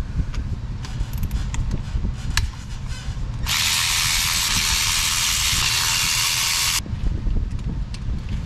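Tools clink against the engine for a few seconds. Then an air ratchet runs with a steady hiss for about three seconds and stops abruptly, backing a bolt out of the glow plug relay and heater solenoid bracket.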